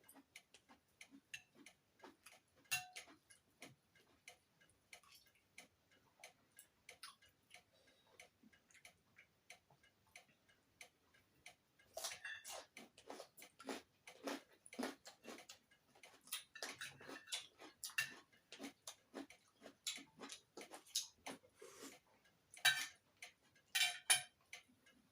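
Close-up eating sounds: irregular soft clicks, smacks and crunches of someone chewing food, sparse at first and coming thicker and louder about halfway through.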